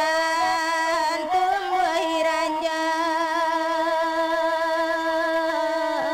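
Music with a sung melody: a few ornamented turns, then one long, steady note held for several seconds, with a short dip in pitch near the end.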